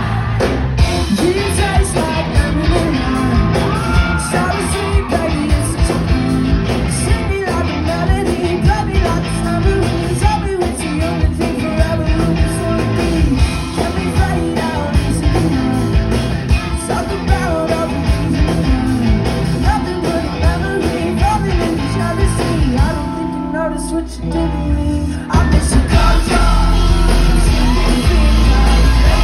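Pop-rock band playing live with a lead singer over a full band and drums. About 23 seconds in the music drops back for a moment, then comes in again louder with a heavy bass.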